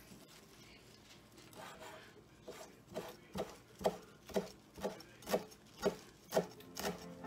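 Chef's knife chopping fresh parsley on a wooden cutting board: a steady run of knocks about two a second, starting a couple of seconds in and growing louder.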